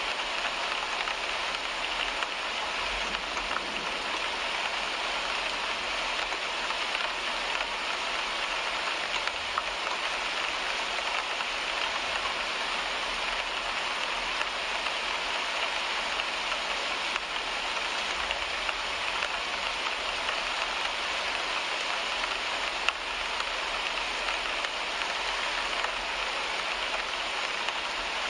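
Steady rain falling on a car windshield, heard from inside the car: an even hiss of drops with an occasional louder tap, over a faint low rumble.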